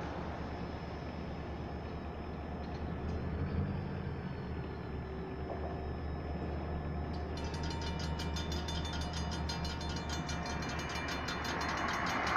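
RACO mechanical crossing bells start ringing about seven seconds in, a fast, even striking as the crossing signals activate for an approaching train. Under them runs the low, steady rumble of the approaching diesel train, growing slightly near the end.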